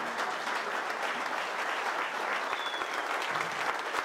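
A large roomful of people applauding steadily, many hands clapping at once.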